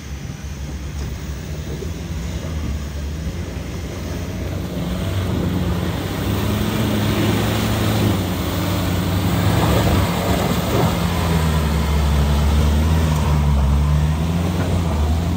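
Nissan Navara's 2.5-litre four-cylinder turbodiesel working hard as the pickup climbs a muddy, rutted slope, its revs rising and falling. It grows steadily louder as the truck nears.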